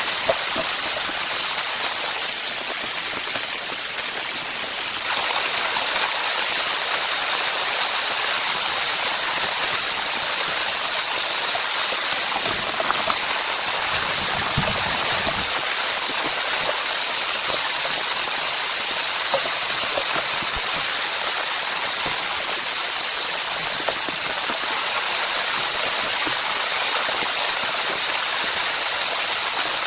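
Steady rain falling, an even hiss with scattered individual drop ticks. It dips slightly a couple of seconds in, and there is a faint low rumble about halfway through.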